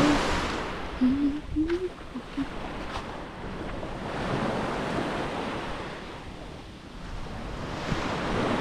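Surf washing onto the beach, the noise of the waves swelling and falling back in slow surges about every four seconds.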